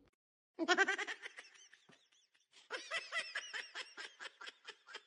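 A person laughing in two bouts of quick, repeated bursts, the second longer and trailing off.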